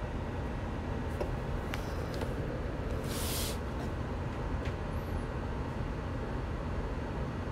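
Steady low rumbling background noise with a faint hum, and a brief hiss about three seconds in.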